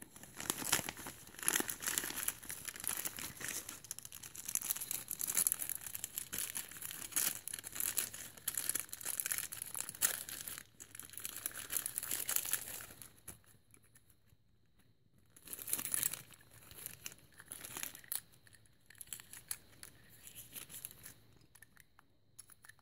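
Plastic bags and wrapping being crinkled and pulled open by hand, dense and continuous for the first dozen seconds or so, then in quieter, shorter bursts.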